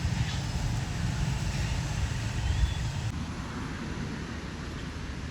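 Steady low outdoor rumble of background noise, with no clear voices.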